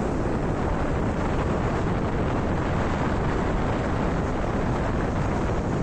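Steady wind rushing over the microphone, mixed with the road noise of a moving vehicle.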